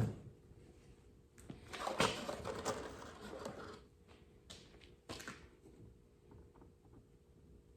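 Light knocks and clatter of wood and tools being handled, with a stretch of rustling about two seconds in and two sharper knocks about five seconds in.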